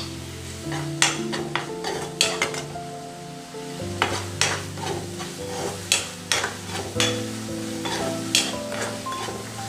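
A steel spoon scrapes and clinks against a nonstick wok as a thick onion-tomato masala is stirred, sizzling in oil. About a dozen irregular strokes sound over soft background music.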